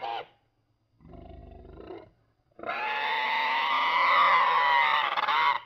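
Monster creature calls made from modified pig sounds. The tail end of one call, then a lower, rough call about a second in, then a long, loud call with a wavering pitch lasting about three seconds.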